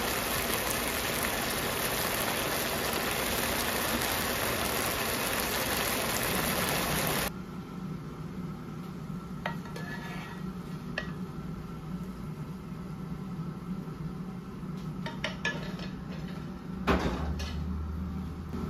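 Chicken simmering in a cola sauce in a pan, a dense steady sizzling hiss that cuts off suddenly about seven seconds in. After that comes a steady low hum with a few light clicks and taps, and one louder knock near the end.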